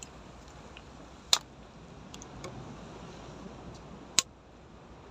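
Steady hiss of wind and sea, broken by two sharp clicks: one about a second in and one about four seconds in.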